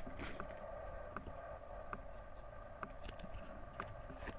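Faint light ticks and rustles of trading cards being flipped through by hand, each card slid from the front of the stack to the back, over a steady faint background hum.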